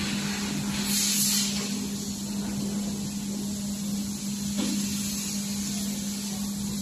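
Steady machine hum with a constant hiss, and a brief louder hiss about a second in.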